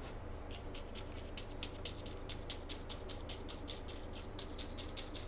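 Paintbrush tapping dark paint onto a stretched canvas in quick, even strokes, about five a second, starting about half a second in.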